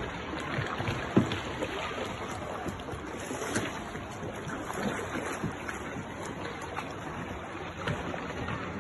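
Sea water lapping and splashing around kayaks by a rock wall, with steady wash and scattered small splashes and knocks of paddles.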